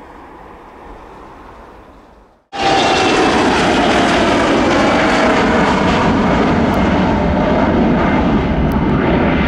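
Twin rear-mounted turbofan engines of a Gulfstream business jet climbing out after takeoff: a loud, steady jet noise with a whine that slowly falls in pitch. It cuts in suddenly about two and a half seconds in, after a fainter jet sound fades out.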